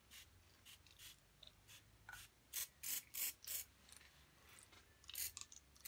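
Hand spray bottle squirted repeatedly onto a wet watercolour painting: a series of short hissing squirts, with a quick run of four about halfway through and a few more near the end.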